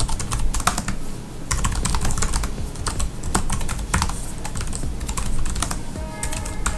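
Typing on the NexDock Touch's laptop-style keyboard: a quick, uneven run of key clicks.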